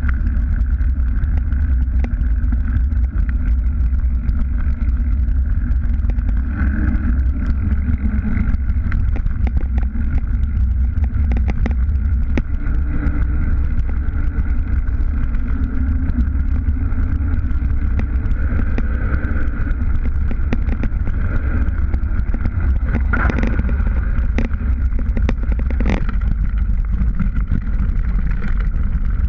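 Mountain bike riding downhill with a camera on the bike: a steady wind rumble buffeting the microphone and the tyres running over pavement and dirt, with scattered clicks and rattles from the bike over bumps, several close together near the end.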